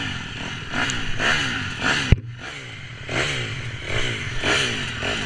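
Dirt bike and quad engines running and revving in repeated short rises and falls of pitch, with a sharp click about two seconds in.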